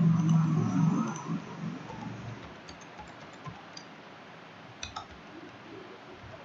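A few sparse, faint clicks of a computer mouse and keyboard as an IP address is set on a PC, with a low murmur in the first second or so.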